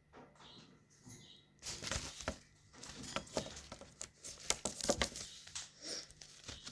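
Irregular rustling, fluttering and clicking from a baby cockatiel being syringe-fed, starting about a second and a half in.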